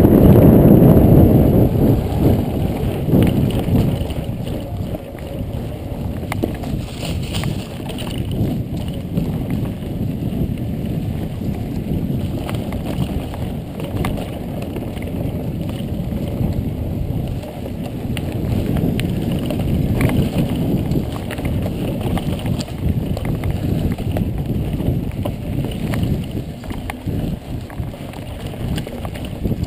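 Riding a mountain bike along a dirt trail: wind buffeting the action camera's microphone, with tyre noise and scattered clicks and rattles from the bike over bumps. The wind is strongest in the first couple of seconds.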